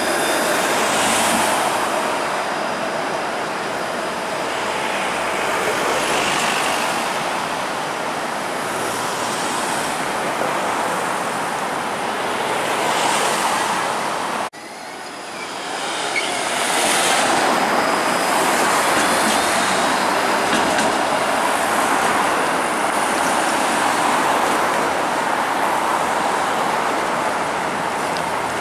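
Downtown street traffic: a Flexity Outlook streetcar runs past close by, mixed with cars and trucks driving by. The sound breaks off abruptly about halfway through, then resumes with more cars and trucks passing.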